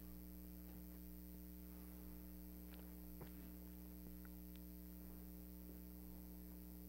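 Near silence with a faint steady electrical mains hum, broken by a few faint ticks in the middle.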